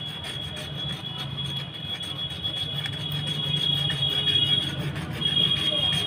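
Hacksaw blade scraped rapidly back and forth across a scooter's drum-brake shoe lining, rasping off the rust that builds up after the scooter stands in the rain and makes the brake squeak.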